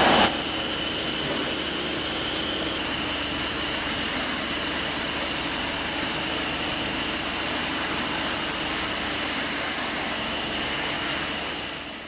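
Nilfisk T75 three-phase industrial vacuum cleaner running steadily: a rush of air with a thin, steady high whine on top. There is a brief louder surge at the very start, and the sound fades out near the end.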